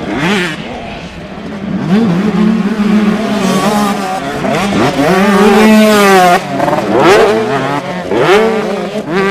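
Several 125cc two-stroke motocross bike engines revving hard and overlapping, pitch rising and falling sharply as the throttle is opened and chopped. A long climbing rev about five to six seconds in cuts off suddenly.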